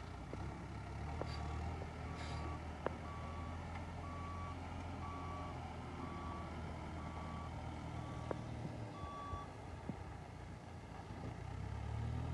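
A vehicle's reversing alarm beeps about once a second, about nine times, then stops. Underneath, a heavy vehicle's engine runs low and steady, with a few sharp clicks.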